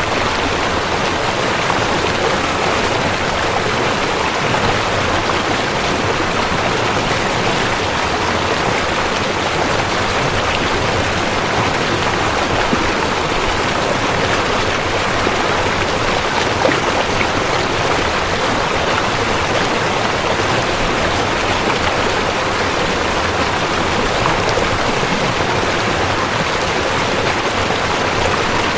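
Rushing river water running steadily: a dense, even flow with no breaks.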